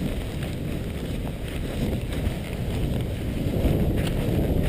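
Wind rushing over the microphone while riding a snowboard downhill: a steady low rumble that grows a little louder near the end.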